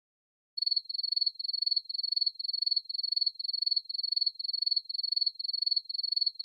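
Cricket chirping: a high, thin chirp repeated steadily about twice a second, starting suddenly about half a second in and cut off abruptly at the end. It stands alone over dead silence, as an added sound effect would.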